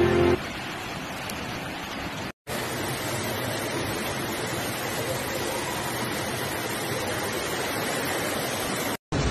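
Steady wash of heavy rain and rushing floodwater, broken by a brief silent gap about two and a half seconds in. Guitar music stops just as it begins.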